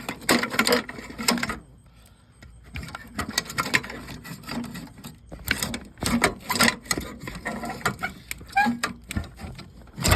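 Irregular metallic clicks, knocks and rattles as a car's brake booster is worked loose from its mounting by hand, in several bursts with short pauses between.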